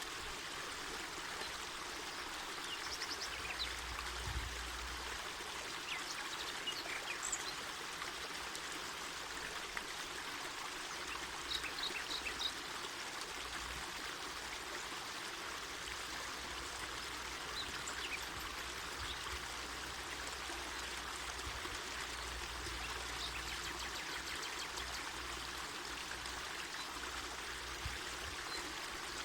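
Mountain forest river flowing, a steady even noise of running water, with a few short faint high-pitched sounds over it.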